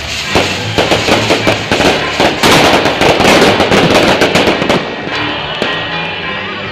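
A string of firecrackers going off in a rapid, dense crackle that grows loudest about halfway through and stops abruptly about five seconds in, over background music.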